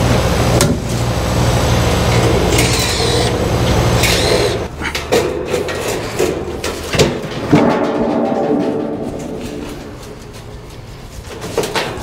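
Cordless drill whirring in short bursts as it backs out the screws of an air-conditioner condenser's top panel, over a steady low hum that stops about five seconds in. Then clicks and sheet-metal clatter as the fan-top panel is worked loose and lifted off.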